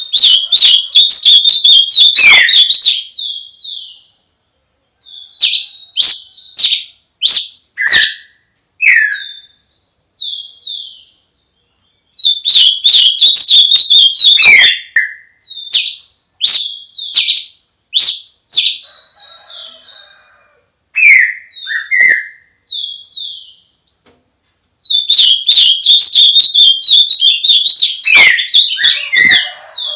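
Songbird singing at dawn: three loud bursts of rapid chattering notes, at the start, about 12 seconds in and about 25 seconds in, with quieter single whistled notes and brief pauses between them.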